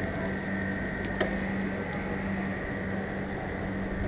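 A steady low mechanical hum with a faint higher whine, like an idling engine or machine, and a single sharp click about a second in.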